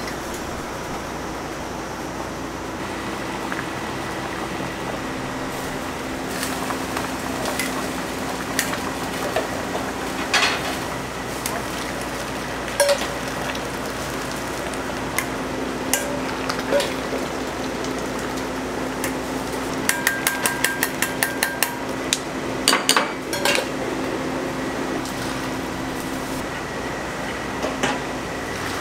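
Kitchen noise of big boiling stockpots under scattered clinks and knocks of metal utensils against pots. A little past the middle comes a quick run of about ten ringing metal taps.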